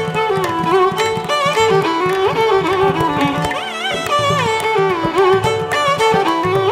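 Background instrumental music in an Indian classical style: a violin-like melody with sliding, wavering notes over a light steady beat.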